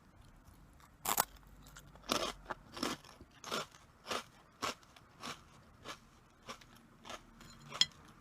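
A person chewing Meiji Karl puffed corn snacks. One loud crunching bite comes about a second in, then crunchy chews follow at a steady pace of a little under two a second.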